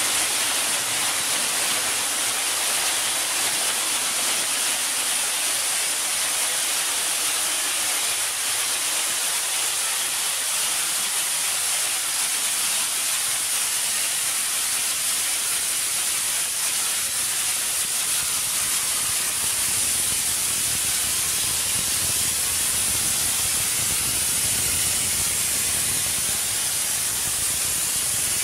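Steady hiss of compressed air blowing from a compressor's air hose run into the mine tunnel to push out the gas.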